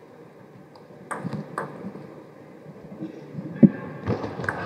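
Table tennis ball clicking off the bats and table: two sharp clicks about a second in, a loud crack a little over three and a half seconds in, then a quick run of clicks as the rally goes on near the end.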